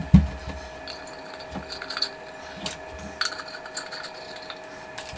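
Light bulbs being screwed into pendant light sockets inside clear glass shades: a sharp knock just after the start, then scattered small clicks and clinks of handling, over a faint steady hum.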